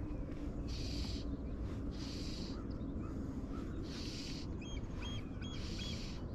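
Rio OutBound Short fly line swishing through the air on false casts, a short hiss about every second, over a steady low rumble. A bird chirps several times about five seconds in.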